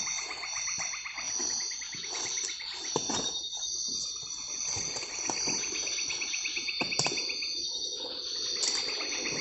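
Night insect chorus: crickets keep a steady high buzz, while pulsing trills start and stop. A few sharp knocks sound, about three and seven seconds in.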